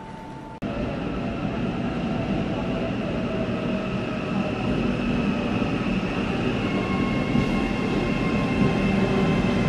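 Auckland AM class electric multiple-unit train pulling slowly into an underground station platform: a steady rumble with several held whining tones, growing louder as it approaches. The sound starts abruptly about half a second in.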